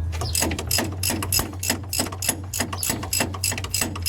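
Ratchet wrench clicking rapidly, about five clicks a second, as it turns a hub mounting bolt in. A steady low hum runs underneath.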